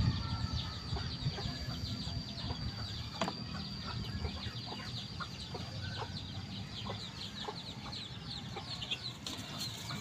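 Chicken clucking now and then, with a steady high-pitched whine behind it.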